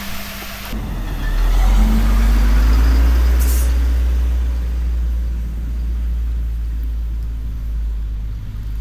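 A road vehicle's engine and tyres rumbling steadily and low, close by, with a brief hiss about three and a half seconds in.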